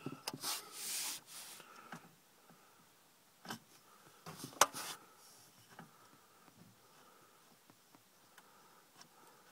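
Handling noise inside a quiet car: a rustle with small clicks for the first couple of seconds, then two sharp clicks, the second and louder one about four and a half seconds in, and little more after that.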